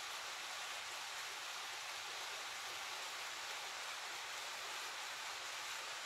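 A small waterfall's falling water making a steady, even rushing hiss that does not change.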